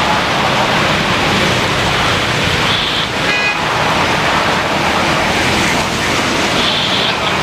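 Steady, loud rushing noise of heavy rain mixed with vehicle or engine noise, with a short high toot a little over three seconds in.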